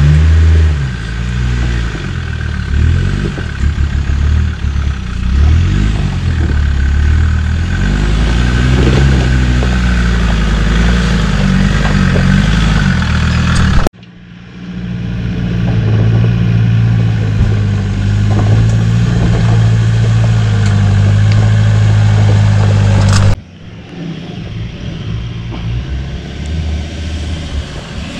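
Off-road 4x4 engine working over a rough track, its revs rising and falling for the first half, then running steadier. The sound breaks off and changes abruptly about halfway through and again near the end, where it becomes quieter.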